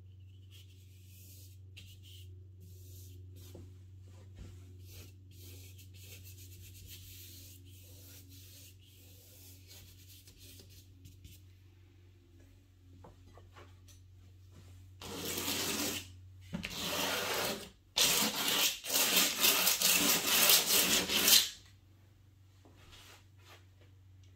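A paintbrush scrubbing paint onto heavy, textured watercolor paper in faint, scratchy, irregular strokes. About fifteen seconds in, a much louder rough rubbing starts in three bursts over roughly six seconds. A low steady hum runs underneath.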